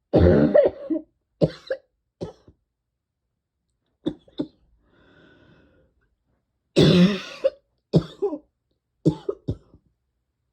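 A person coughing in two fits about seven seconds apart, each a loud cough followed by several shorter coughs, with a couple of quieter coughs in between. This is a persistent cough from a tickly throat and lungs.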